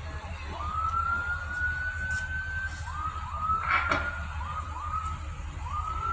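Fire apparatus sirens: one siren tone rises and holds for about two seconds, then a string of short rising whoops follows, over a steady low engine rumble. A brief, louder noisy burst comes about four seconds in.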